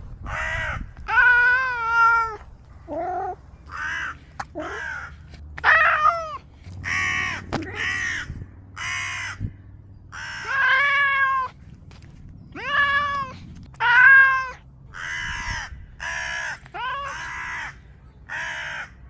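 Domestic cat vocalizing in a long run of separate meows and yowls, about one a second, some clear with rising and falling pitch and others rough and caw-like.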